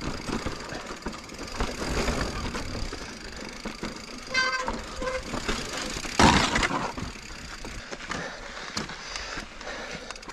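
2021 Giant Reign Advanced Pro 29 full-suspension mountain bike rolling over sandstone slickrock: uneven tyre noise on rock with clicks and rattles from the bike. A brief pitched tone sounds about four and a half seconds in, and a loud thump comes about six seconds in.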